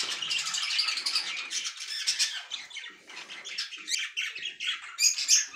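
Budgerigar nestlings calling in a rapid, continuous stream of high, raspy chirps and squawks, easing briefly about halfway through.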